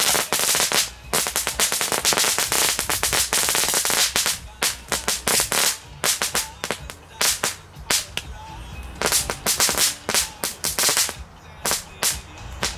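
Several Vulcan Cracker Jack crackling whips, Category F1 rattle-band firecrackers, burning on the ground and setting off rapid strings of small sharp cracks. The crackling is dense for about four seconds, then breaks into shorter clusters of cracks that grow sparser and stop shortly before the end.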